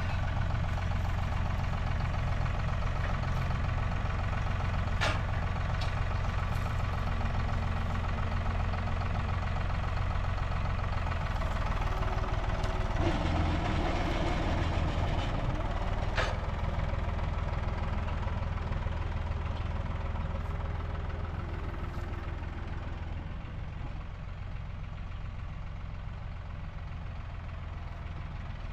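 An engine running steadily, with a sharp knock about five seconds in and another about halfway through; it eases slightly quieter toward the end.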